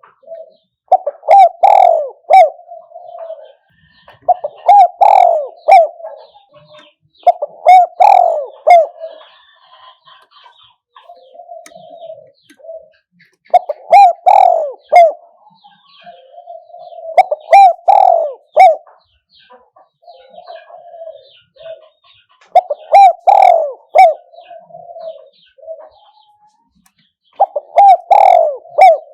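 Spotted dove cooing: a repeated phrase of a few loud, deep coos tailing off into softer notes, coming about every three to four seconds. Faint chirps of small birds sound between the phrases.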